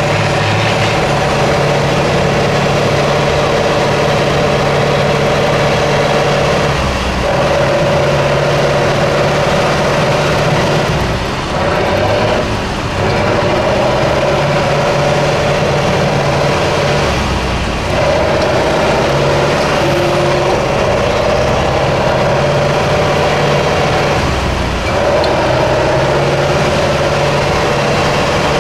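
Six-wheel-drive off-road trial truck's engine running under load as it crawls over rough ground, its revs stepping up and down every few seconds with the throttle.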